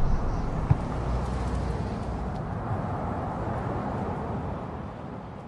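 A steady wash of low rumbling noise, without melody or voice, slowly fading out, with one short thump about a second in.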